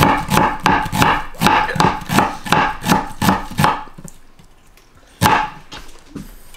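Kitchen knife chopping shallots on a wooden cutting board, about three quick chops a second with a slight ring on each stroke, stopping a little before four seconds in. One sharp knock follows about five seconds in.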